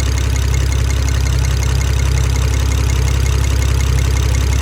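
BMW 335i's N54 twin-turbo inline-six idling steadily, with a fast, regular ticking over the engine's run. A pinging is mixed into the ticking; the owners are unsure whether it comes from an injector, the valves or a rod bearing.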